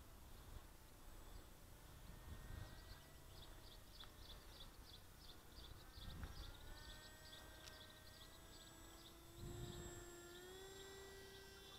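Faint, distant hum of a model plane's brushless motor and propeller (Eachine 2204 2300KV on a Micro Skyhunter), its pitch drifting and then rising near the end. Light wind buffets hit the microphone a few times, and a faint rapid chirping, about three a second, runs through the middle.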